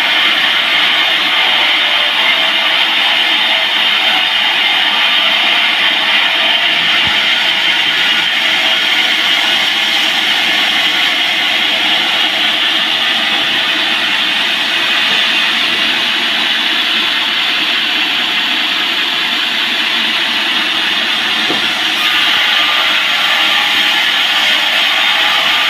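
Band sawmill running steadily through a large teak log, a loud continuous saw noise.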